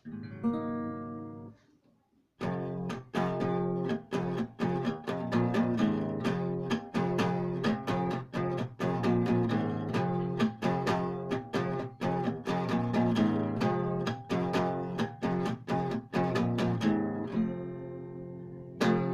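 Acoustic guitar: one chord rings out, then after a short pause chords are strummed in a steady rhythm. It ends on a chord left ringing near the end.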